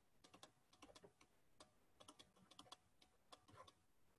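Faint, light clicks and taps, unevenly spaced at about three a second, over near silence.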